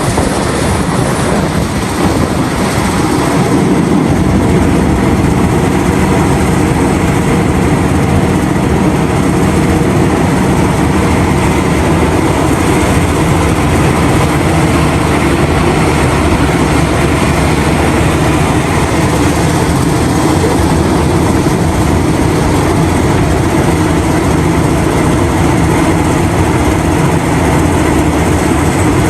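Heavy diesel machinery running steadily: the engines of Liebherr R974 hydraulic mining excavators and haul trucks working together, a loud, dense, unchanging drone.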